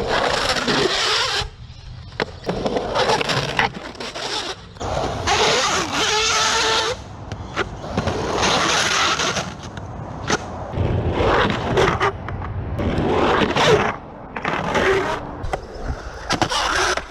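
Skateboard wheels rolling and sliding on concrete through Bert slides, in several passes a second or two long with short gaps between them. Some stretches carry a wavering squeal from the sliding wheels.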